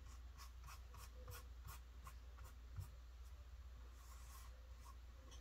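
A flat paintbrush's bristles scratching over canvas in short, quick strokes, about two to three a second, as black paint is brushed on.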